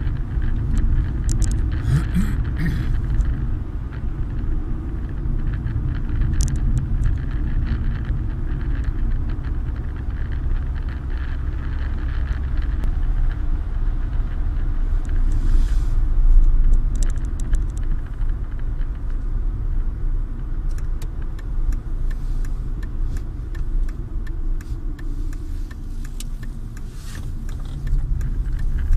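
Steady low rumble of a vehicle driving on a snowy road, engine and tyre noise heard from inside the cabin, with scattered light clicks and rattles.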